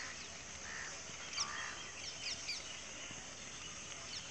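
Birds giving short, high chirps a handful of times over a steady, faint outdoor background hiss.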